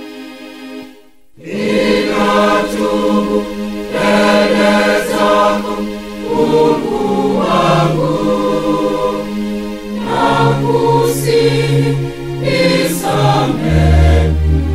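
Church choir singing a Swahili gospel song. A held note fades out, and the voices come back in together about a second and a half in.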